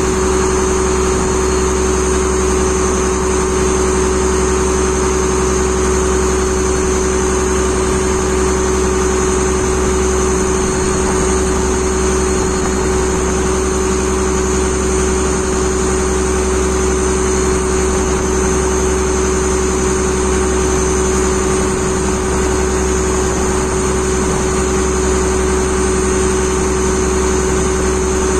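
Fishing boat's engine running steadily at constant speed: a loud, unchanging drone with a strong steady hum.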